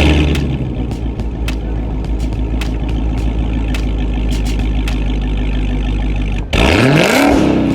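Dodge Hellcat's supercharged 6.2-litre Hemi V8 through a Corsa Extreme cat-back exhaust, idling just after start-up. Near the end it gives one quick rev that climbs sharply and drops back to idle.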